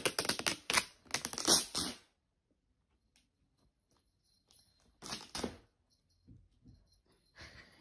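Handling noise from a small green packet held in the hand: quick crackling and rattling for about two seconds, then a short spell of it again about five seconds in.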